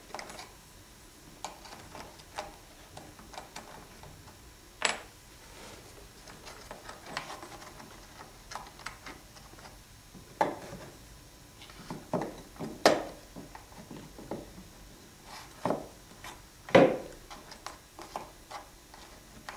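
Irregular light clicks, knocks and scrapes of hard plaster rock castings being handled and set against each other, with a few sharper knocks, the loudest about 13 and 17 seconds in.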